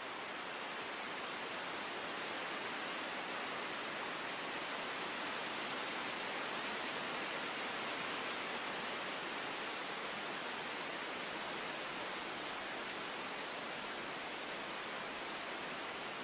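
Steady rushing nature ambience, an even noise with no distinct events that swells slightly towards the middle.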